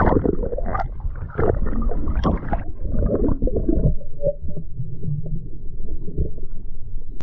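Muffled gurgling and sloshing of water around a camera held underwater, the sound dull and boomy, growing duller about three seconds in.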